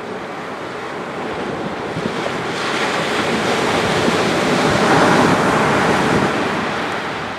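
Sea waves breaking and washing up a sandy beach, in a somewhat rough sea. The surf swells about a third of the way in, peaks near the middle, then eases off toward the end.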